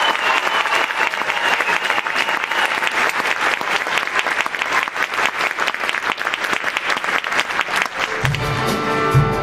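Audience applauding a show choir as the song's last sung note ends. About eight seconds in, band music with bass starts the next number.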